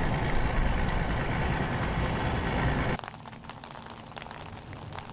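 Steady engine noise, a boat's outboard idling with wind noise over it, cutting off abruptly about three seconds in to a much quieter background with faint scattered ticks.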